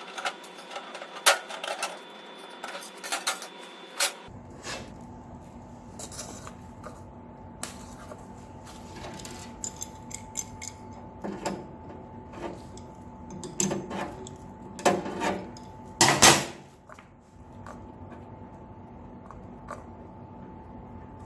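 Scattered clicks, knocks and clatter of hard parts being handled on a vacuum packaging machine, with the loudest knock about sixteen seconds in, over a faint steady hum.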